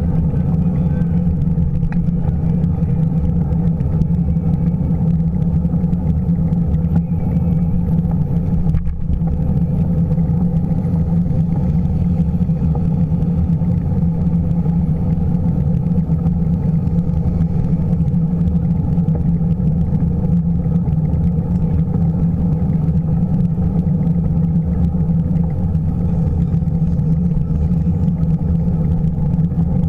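Steady, loud low rumble of wind and road vibration on a bicycle-mounted action camera while riding along a paved bike path.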